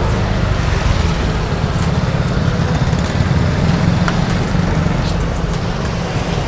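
Spring rolls deep-frying in a large wok of oil: a steady sizzle over a constant low rumble.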